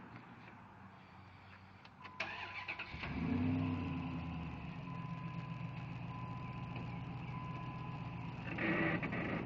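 A vehicle engine cranked by its starter about two seconds in, catching about a second later and settling into a steady idle. A thin steady high tone runs alongside once the key is turned, and there is a brief louder burst near the end.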